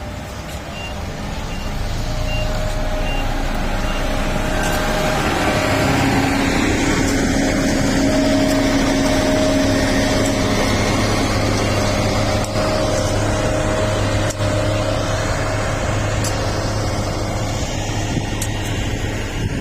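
A heavy construction machine's engine running steadily, growing louder over the first couple of seconds. Faint short beeps repeat about twice a second for the first few seconds.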